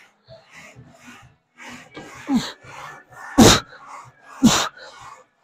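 A man's short, forceful grunting exhales while pushing a leg press: three in the second half, about a second apart, each dropping in pitch.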